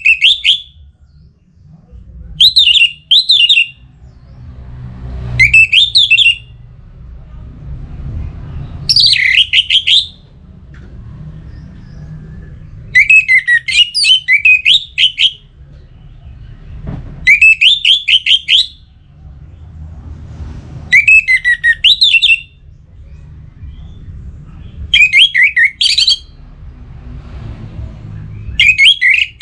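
Orange-headed thrush (anis merah) singing: short phrases of quick rising and falling notes, each about a second long, repeated every three to four seconds.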